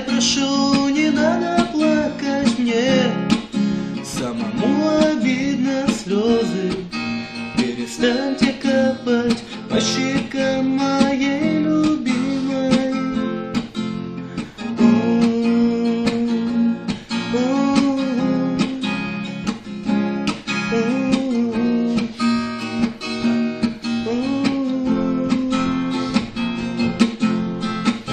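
Acoustic guitar strummed in a steady rhythm, accompanying a song.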